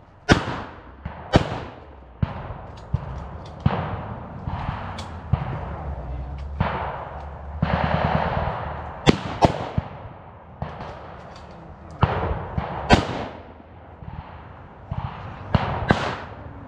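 Blank gunfire from WWII-style small arms in a mock battle: irregular single shots, some loud and close and others fainter and farther off, several coming in quick pairs.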